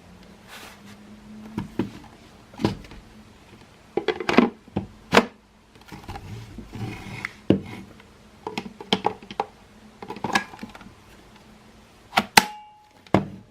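Plastic housing parts of a Makita CL108FD cordless vacuum being handled and clicked together during reassembly: a run of irregular clicks and knocks, with a sharp snap near the end.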